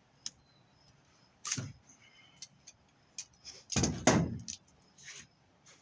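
Scattered metallic clicks and knocks of heavy copper wire being worked out of BX armored cable, with a louder clunk a little past halfway.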